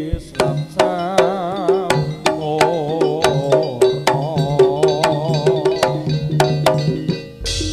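Live Javanese jaranan music: sharp kendang hand-drum strokes drive the rhythm, and a melody with strong vibrato rides over steady low gamelan notes. A loud crash comes near the end.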